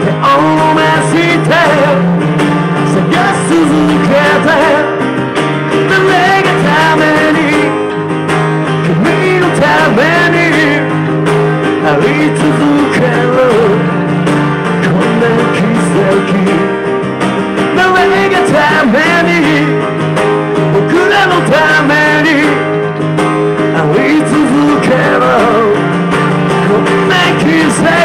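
Live acoustic rock performance: strummed acoustic guitar with electric bass underneath and a voice singing over them.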